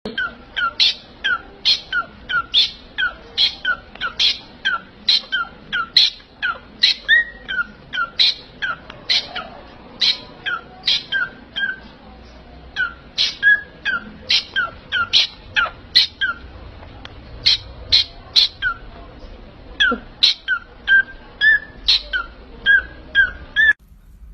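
A bird calling over and over, each call a short sharp high note followed by a lower one, repeated nearly twice a second. The calls stop abruptly shortly before the end.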